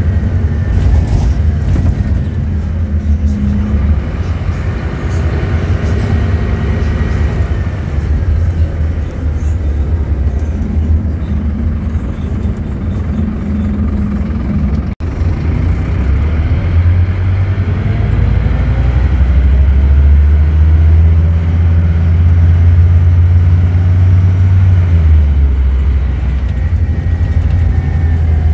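Scania K230UB bus's rear-mounted five-cylinder diesel engine heard from inside the saloon. It runs as the bus slows and sits at a stop. After a brief dropout about halfway, it pulls away and accelerates hard with a deep rumble and a rising whine through the gears.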